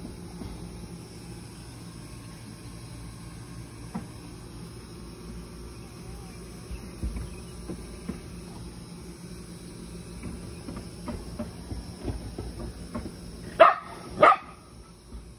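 A dog barks twice, about half a second apart, near the end, over a steady chirring of insects.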